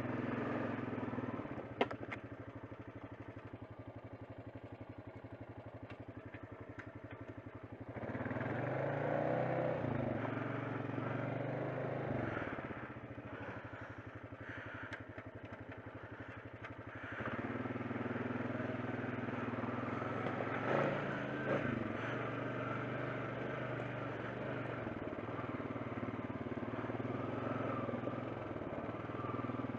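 ATV engine running as the quad is ridden slowly along a trail; the engine note rises as the throttle opens about eight seconds in, eases back a few seconds later, and rises again about seventeen seconds in. A single sharp knock about two seconds in.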